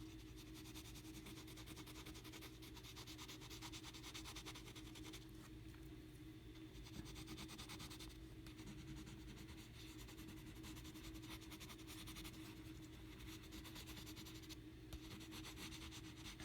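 Quiet, rapid back-and-forth scratching of a colouring tool on sketchbook paper as an area of the drawing is filled and blended in green, in stretches broken by short pauses, over a faint steady hum.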